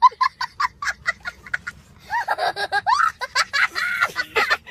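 A young child laughing hard: a fast run of high, short laughs, about six a second, for the first two seconds, then longer squealing laughs that slide up and down in pitch.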